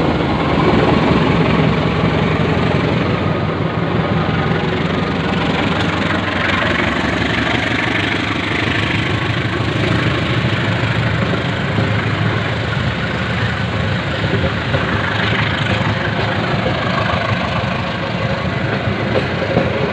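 An engine running steadily with a low hum and no horn sounding.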